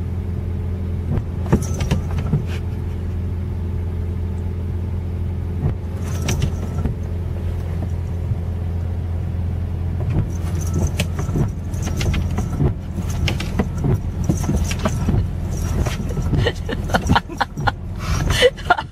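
Car engine idling steadily, heard from inside the cabin as a low hum. A small bell on a cat's collar jingles on and off over it, more often in the second half.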